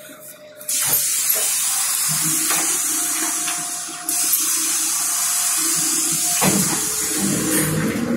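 Loud compressed-air hiss from the Renault 12M city bus's pneumatic system. It starts suddenly about a second in and surges again at about four seconds. Near the end it gives way to the bus's diesel engine rumbling.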